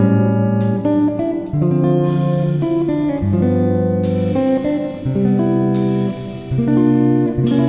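Background music: plucked guitar notes and chords changing about every second.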